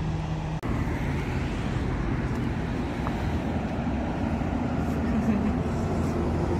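Steady rumble of road vehicles, a continuous low noise that breaks off abruptly about half a second in and resumes at once.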